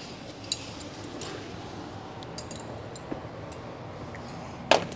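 A few light clicks, then a sharper metallic clink near the end: hand tools handled on a concrete shop floor, over quiet room tone.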